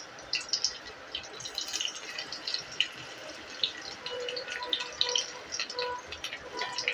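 Chopped garlic sizzling in hot oil in a pan: a dense, irregular crackle and spitting.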